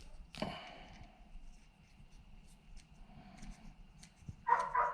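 A dog whining briefly near the end, over a few faint clicks.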